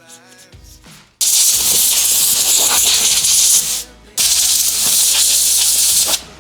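Two long bursts of pressurised spray hissing, each about two and a half seconds with a short break between, as the graphics card's parts are cleaned.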